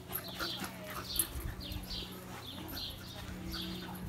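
A cockapoo puppy and a French bulldog–pug cross puppy playing on a lawn: faint dog play noises and scuffling. Short high chirps repeat about twice a second in the background.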